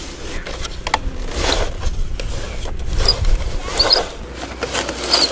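Plastic toy digger scraping and scooping through sand, with scattered clicks and scrapes of its plastic parts, over low wind rumble on the microphone that eases about four seconds in.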